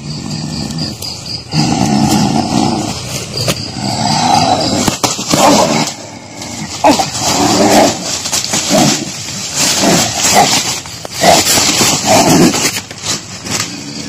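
A man growling and roaring like a wild animal in about a dozen rough bursts, each up to a second or so long, as though possessed by the creature being fought.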